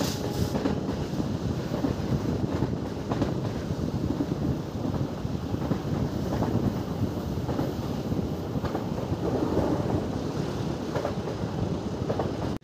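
Passenger train running along the line: a steady rumble of wheels on the rails with a few faint clicks, and wind buffeting the microphone.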